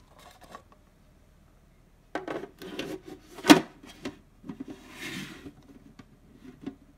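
Clear plastic cat bowls handled in their plastic stand: a run of knocks and rubbing scrapes, with the sharpest knock about three and a half seconds in.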